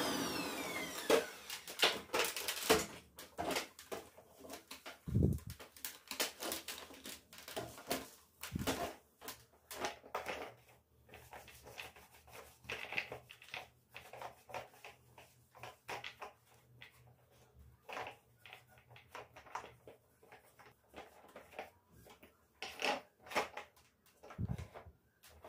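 Irregular clicks, knocks and light rattles of household items being handled and set down, with a dull low thump about five seconds in and another near the end.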